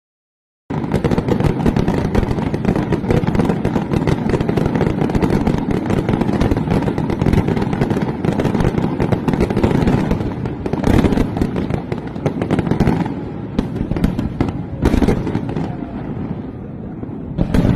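Fireworks going off: a dense, continuous crackle of many bursts, with separate loud bangs standing out in the second half as the crackle thins.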